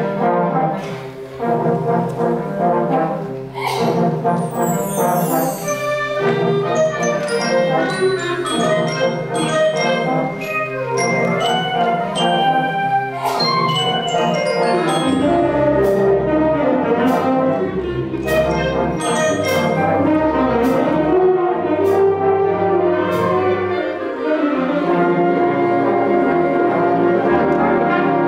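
High school symphonic band playing, with brass to the fore over full held chords and sharp percussion strikes. A high sweep falls in pitch about four seconds in, and deep bass notes come in about halfway through.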